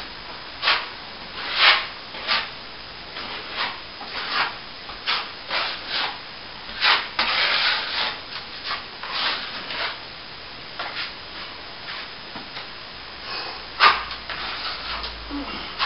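Hand sanding of plaster filler on a wall: irregular rasping strokes, with a longer run of quick strokes about seven seconds in.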